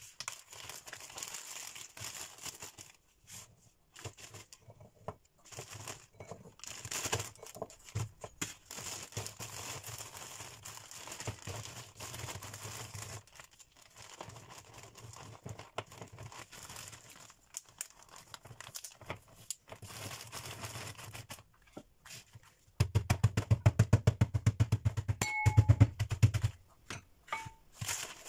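Plastic zip-lock bag crinkling and rustling as butter biscuits are handled and crushed inside it. Near the end comes a rapid run of loud knocks for about four seconds as the biscuits are beaten into crumbs.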